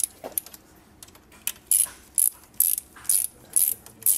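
Hand ratchet clicking in short strokes, about two a second from about a second and a half in, as it turns the bolts that jack the water pump out of a BMW E36 M3's engine.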